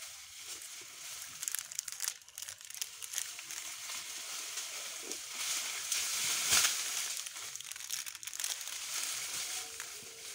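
Dry leaves and dead brushwood rustling and crunching as an old timber fence and dry vegetation are handled and pulled apart, with scattered sharp cracks, the loudest about six and a half seconds in.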